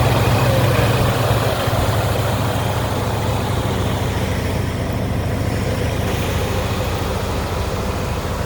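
Jegs 5.7-litre 350 crate V8 in a 1972 Chevrolet C10 pickup idling steadily through its dual exhaust, a little louder for the first second or so.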